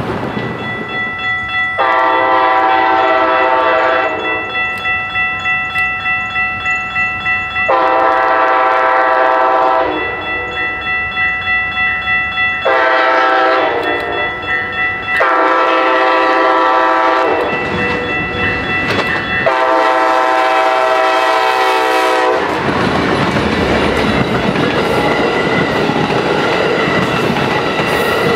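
Amtrak Siemens Charger diesel locomotive sounding its multi-note air horn in blasts of long, long, short, long, long as it approaches, the last blast the longest. After the horn stops, the train's wheels rumble and clatter over the rails as the bilevel passenger cars pass close by.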